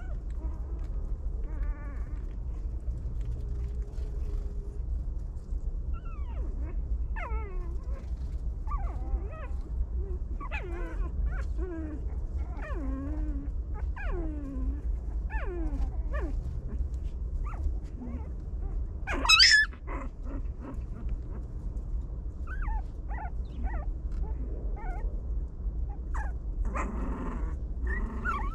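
Puppies whining and whimpering in a string of short, high cries, many of them falling in pitch, with one loud, sharp yelp about nineteen seconds in. A steady low hum runs underneath.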